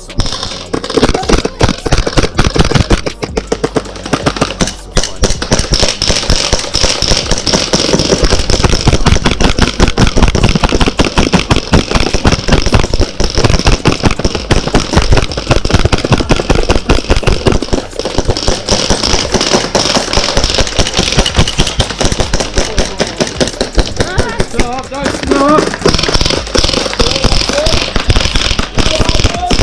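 Airsoft guns firing in long, rapid strings of shots that crackle almost without a break, with voices underneath.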